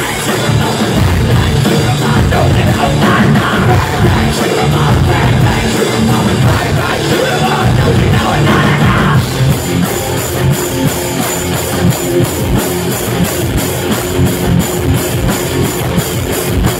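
Live heavy metal band playing loud: electric guitars and drum kit with vocals, a steady cymbal beat standing out over the second half.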